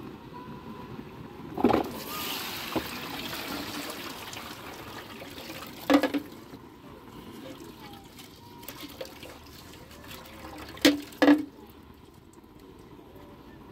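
Parboiled rice being drained: water pours from a pot through a plastic colander into a metal basin for a couple of seconds, starting about two seconds in, then dribbles through the rice. A few sharp knocks of the aluminium pot against the basin, one about six seconds in and two close together near the end.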